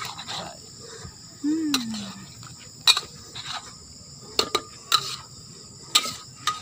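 A metal ladle knocks and scrapes against a steel wok while stirring vegetables in broth, giving a handful of sharp clinks at irregular spacing. Crickets chirp steadily in the background, and there is a brief hum about a second and a half in.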